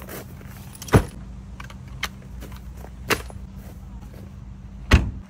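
Heavy thumps and knocks from a packed kayak bag being lifted out of a hatchback's boot: a loud thump about a second in, a lighter knock near the three-second mark, then a loud slam near the end as the boot lid is pulled shut. A low steady hum runs underneath.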